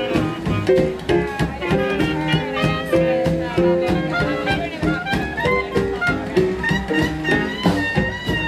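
Traditional New Orleans jazz band playing an instrumental passage, a melody line moving over a steady swing beat.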